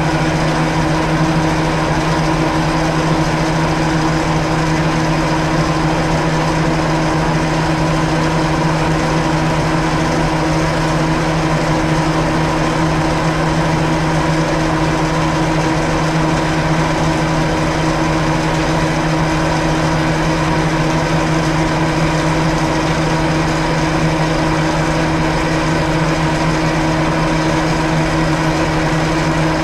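Milling machine running at 340 rpm with an end mill cutting a 1 mm deep flat in a metal workpiece under hand feed: a steady machine hum with constant cutting noise.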